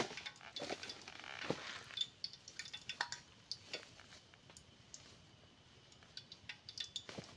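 Faint scattered clicks, light knocks and rustling of bags and packets being rummaged through as spices are gathered, with a brief patch of rustling about a second in.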